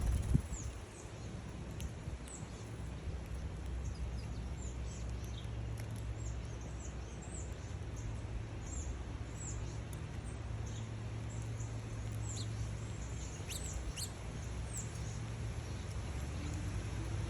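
Small birds chirping at a feeder: many short, high calls that slide downward, scattered irregularly, over a steady low rumble. A brief knock comes right at the start.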